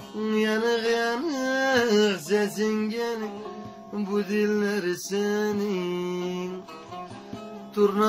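A bağlama (long-necked Turkish saz) strummed and plucked while a man sings a drawn-out folk melody without clear words, his voice sliding in pitch.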